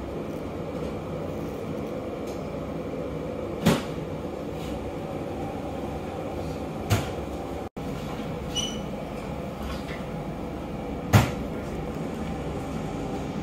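Steady background hum with three sharp knocks spread out, the last the loudest, and a short high-pitched chirp after the second knock.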